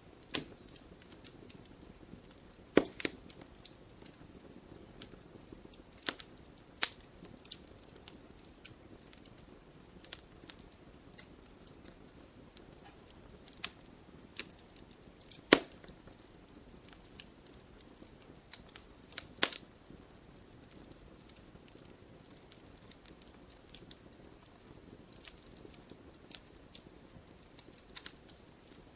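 Fire burning in a fireplace, crackling steadily over a soft hiss. Sharp pops come irregularly, with a few louder snaps scattered through.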